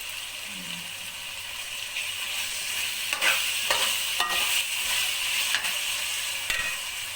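Urad dal and spices sizzling in hot oil in a pot as a spoon stirs them, with a few scrapes of the spoon against the pan in the middle. This is the bhuna (frying) stage before water goes in.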